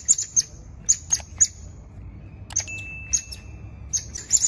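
High-pitched chirping calls in short quick clusters, about one cluster a second, with a thin steady whistle held for about a second midway.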